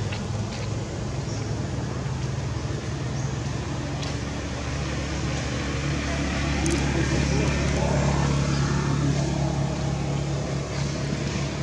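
A motor vehicle's engine running, a low steady hum that swells louder from about six seconds in and eases off near the end.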